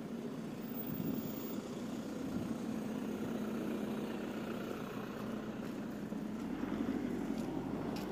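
Road traffic on a city street: a steady engine-and-tyre rumble, with a van driving past close by.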